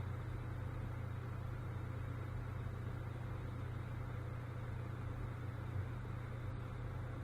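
Steady low hum with an even hiss underneath: background room tone on the microphone.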